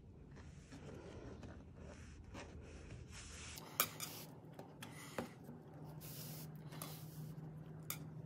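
Hand-sewing through thick cotton rope with a long metal needle and warp cord: soft rubbing and rustling as the cord is drawn through the rope and the rope is handled, with about three sharp clicks in the second half.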